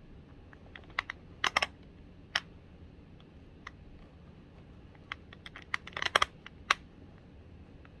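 Metal clicks and clacks from a quick-release prosthetic wrist connector being worked by hand, its lever and locking pin and the steel hook knocking against the connector. The clicks come in two quick bunches, one after about a second and another after about six seconds.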